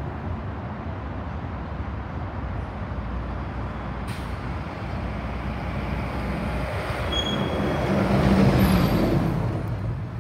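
A large vehicle passes close by: its noise swells to a peak about eight seconds in, then falls away, over a steady low rumble.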